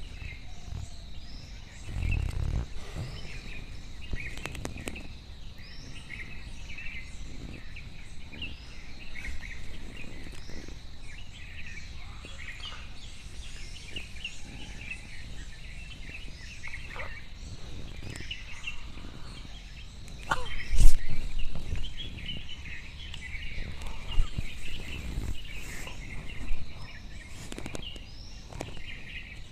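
Many birds chirping and twittering continuously, over a steady thin high whine. A few low thumps break in, the loudest about 21 seconds in.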